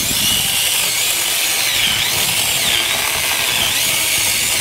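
Eiruaw 6-inch cordless electric mini chainsaw running and cutting into a wooden stump. Its high motor whine dips and recovers several times as the chain bites into the wood.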